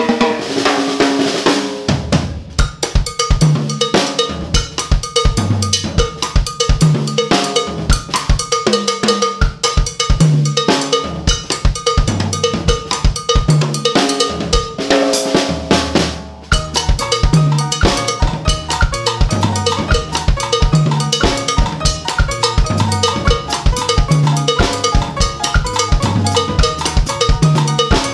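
Pearl Export Series drum kit played in a busy groove: kick, snare and cymbals with a cowbell pattern on top and repeating low bass notes underneath. The full groove with the kick drum comes in about two seconds in, and there is a brief break about sixteen seconds in.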